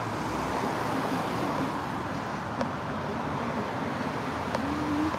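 Steady city street traffic noise from cars passing on a downtown road, with two faint clicks about halfway through and near the end.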